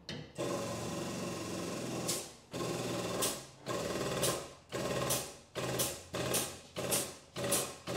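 Pump of a frame jig's hydraulic pulling tower running as a damaged chassis leg is pulled into line. It runs steadily for about two seconds, then in about eight short bursts, one every half second or so, as the final small pulls are fed in.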